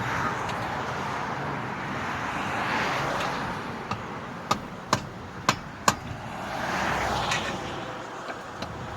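Road traffic passing, its tyre and engine noise swelling twice, with a quick run of about five sharp clicks in the middle.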